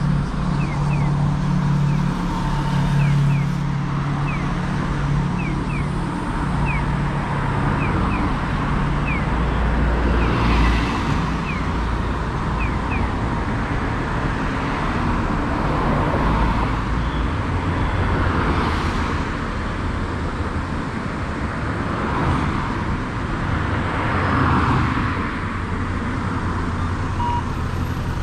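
Street traffic: a steady low rumble of car engines and tyres, with several cars passing. Short high chirps repeat through the first third.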